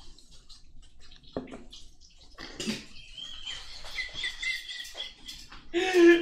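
A person's high-pitched, wavering squeal of laughter lasting a couple of seconds, followed near the end by louder laughing voices.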